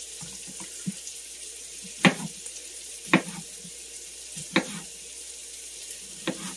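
Kitchen knife chopping potatoes on a cutting board: about five separate strokes, a second or more apart, over the steady hiss of carrots and celery sizzling in butter in a skillet.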